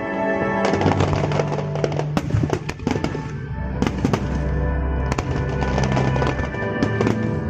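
Fireworks going off in quick succession, many sharp bangs and crackles, with music playing steadily underneath.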